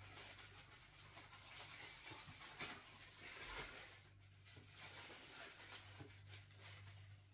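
Faint rustling and crinkling of white protective packing wrap as it is pulled off a statue by hand, with a low steady hum underneath.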